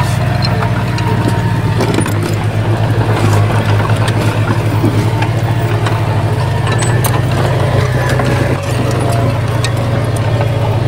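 Crawler bulldozer's diesel engine running steadily with a low drone, with scattered sharp metallic clicks and clanks over it.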